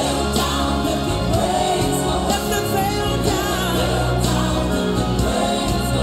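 Worship song: singing over instrumental accompaniment with long held bass notes.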